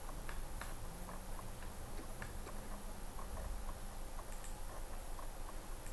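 Faint ticking of a computer mouse's scroll wheel, notch after notch, about three ticks a second, as a dropdown list is scrolled through.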